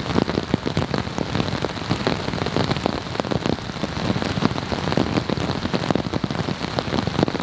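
Steady rain falling on a tarp overhead, a dense run of close drop strikes throughout.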